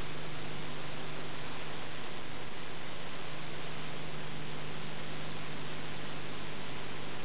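Steady hiss with a low electrical hum, unchanging throughout, and no other sound: the noise floor of an old Super 8 film transfer.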